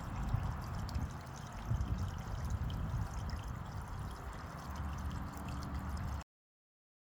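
Water splashing and trickling as a water wiggler stirs the water of a bird bath, over a low rumble; the sound cuts off abruptly about six seconds in.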